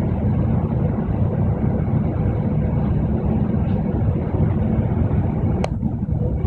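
Steady low rumble of a moving double-decker bus, engine and road noise heard from inside the bus, with one brief sharp click near the end.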